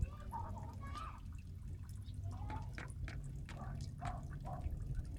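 Rapid wet clicks of a puppy licking and mouthing a cat, with a few faint short high calls in the background.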